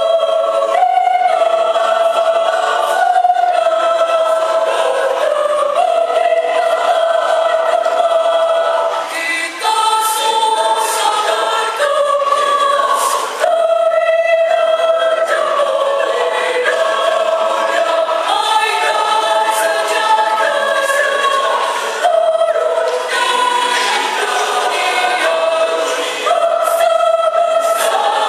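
Mixed choir of men's and women's voices singing in harmony, holding chords that change every second or two, with brief breaths between phrases.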